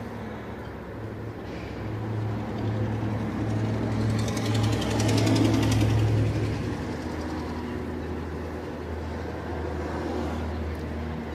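A motor running steadily with a low hum. It grows louder with a rapid ticking about four to six seconds in, then settles back at a slightly lower pitch.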